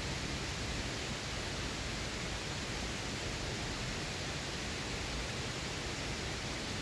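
Steady rush of flowing mountain-stream water, an even hiss that does not change.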